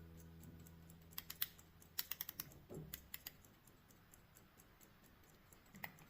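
Small sharp clicks and taps in quick clusters, from handling a pocket watch, over faint, fast, even ticking.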